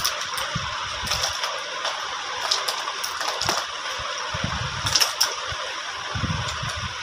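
Light clicks and taps of small cosmetic items and plastic cases being handled and set down, with a few dull knocks, over a steady hiss.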